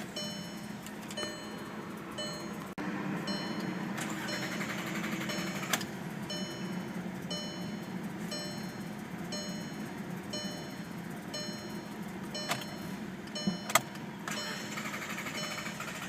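Volkswagen Jetta engine idling, a steady low hum that the owner puts down to a fuel supply problem causing rough idle. A dashboard warning chime beeps over it in a steady repeating rhythm, with a few sharp clicks.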